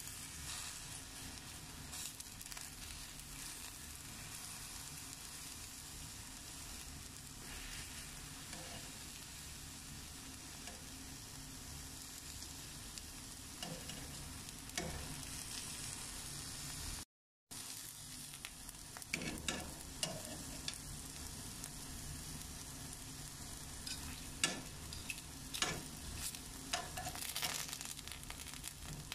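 Eggplant slices sizzling in shallow oil in a frying pan, a steady hiss with sharp crackles and clicks. The sound drops out for a moment about two-thirds through, and the crackling comes more often after that.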